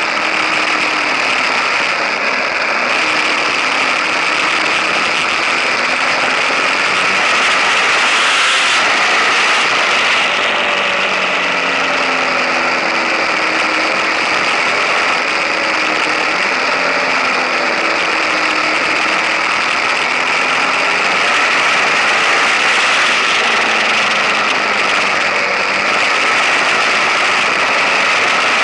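KTM 1050 Adventure's V-twin engine running under way, its pitch slowly rising and falling with the throttle, under a steady rush of wind and tyre noise from the moving bike.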